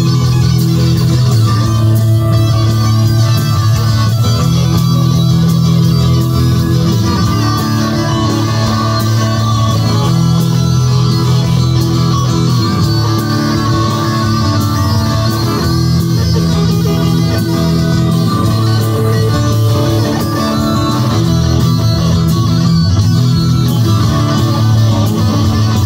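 Live rock band playing loudly, led by two amplified electric guitars.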